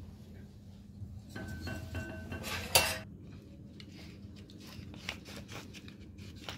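A ceramic dish scraping and ringing on the work surface, with a sharp clink near the middle. Then a pepper mill grinding over the food in a run of quick rasping clicks.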